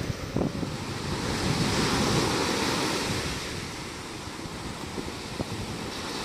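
Sea surf washing onto the beach, swelling louder about two seconds in and easing off, with wind buffeting the microphone.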